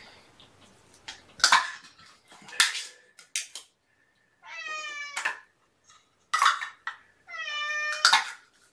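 A mother cat meows twice while waiting for her breakfast. Each meow lasts about a second, one around halfway through and one near the end, and both are friendly rather than complaining. Between them come sharp clinks of a spoon against a food dish as wet food is served.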